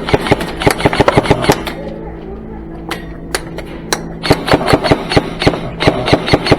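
Airsoft gunfire in rapid bursts of sharp cracks, about eight to ten a second. One burst comes in the first second and a half, a few single shots follow around three to four seconds in, and a second burst comes near the end. It is fire heavy enough to shower the player with BB fragments.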